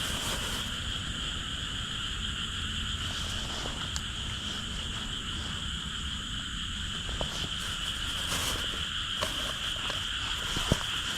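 A dense chorus of frogs calling nonstop, a continuous high-pitched trilling wall of sound, with a low rumble underneath and a couple of brief clicks near the end.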